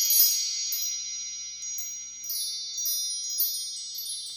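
Chimes ringing: a cluster of high, bright tones, struck again every half second or so, each strike ringing on into the next.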